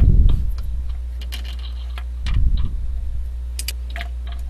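Light clicks and taps of metal parts being handled as the Z-axis assembly is fitted onto the upright of a homemade pipe-frame CNC router, with two dull low thumps, one at the start and one about two seconds in, over a steady low hum.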